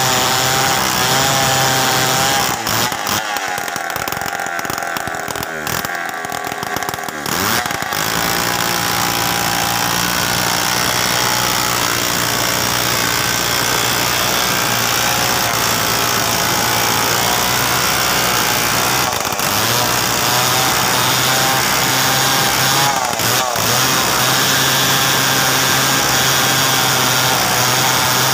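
Two-stroke chainsaw running at high revs as it rips lengthwise through a mahogany log. About three seconds in the revs drop and waver for several seconds, then the saw holds steady high revs again with two brief dips later on.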